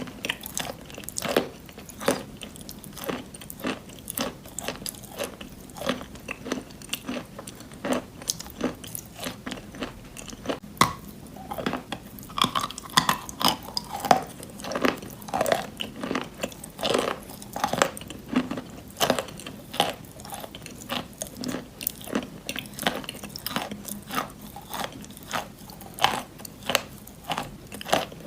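Close-up chewing and crunching of wet chalk in a pasty white clay, a steady run of short, moist crunches a few times a second.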